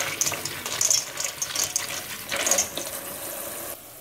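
Tap water running onto light red kidney beans in a metal colander in a sink while a hand rubs them, the beans clattering against the colander in irregular bursts. It drops off suddenly just before the end.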